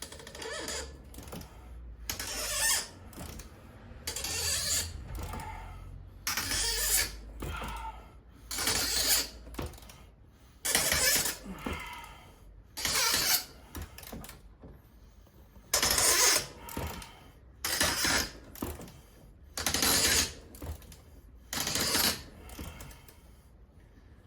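A series of rasping strokes, about one every two seconds, each lasting under a second, made by hand work freeing a caravan's pop-up roof.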